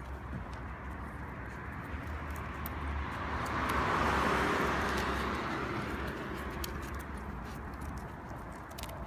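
A car passing on the street: tyre and engine noise swells to its loudest about four seconds in, then slowly fades away.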